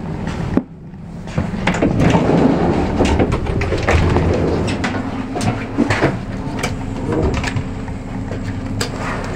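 Steady rumbling inside a passenger railway carriage, with many sharp clicks and clunks scattered through it. The level drops for a moment just over half a second in, then rises again.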